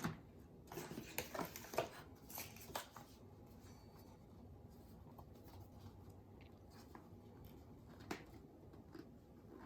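Light clicks and handling noises of an Apple Watch box and its parts being handled, a cluster in the first three seconds and one more near the end, over faint room hiss.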